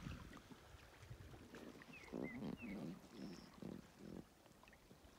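Faint animal calling: a run of about six short, low-pitched notes, with a few brief high bird chirps among the first of them.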